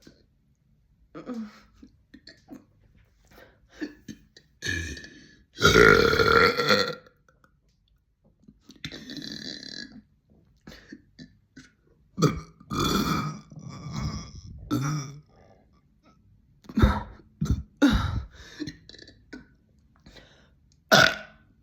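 A person letting out deep burps, one after another with pauses between. The longest and loudest comes about six seconds in, another long one around thirteen seconds, then several shorter ones near the end.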